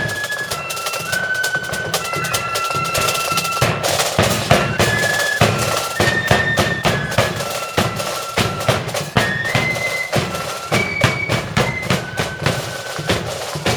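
Marching flute band playing a tune: a high melody of held flute notes over snare and bass drums beating a busy march rhythm.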